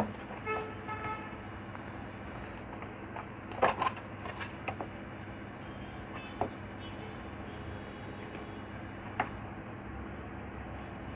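Steady low background hum with a few faint, sharp clicks and taps spread through, and a short horn-like tone about half a second in.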